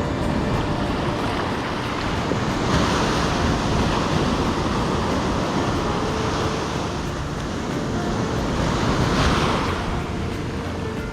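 Ocean surf breaking and washing up a sandy beach, with wind rumbling on the microphone. The wash swells louder about three seconds in and again about nine seconds in.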